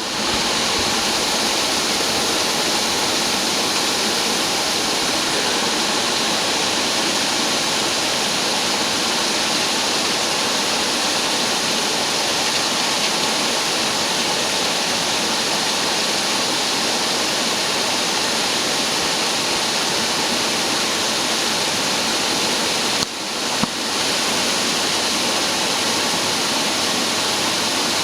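Duct-cleaning vacuum machine running with a steady, loud rushing hiss of air. Late on, its sound dips briefly with a click before settling back to the same steady level.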